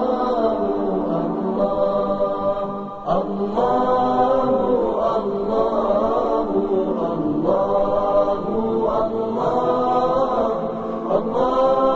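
Wordless vocal 'aah' chanting, layered voices holding long, slowly gliding notes in the style of the vocal backing used in place of instruments in Arabic nasheeds. The phrases break and restart about three seconds in, again near the middle and near the end.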